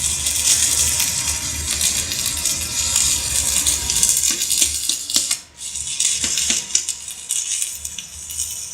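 Electric stick (arc) welding from a Daesung welding machine: a steady, dense crackle and sizzle of the arc over a low hum. The arc breaks off briefly about five and a half seconds in and then strikes again.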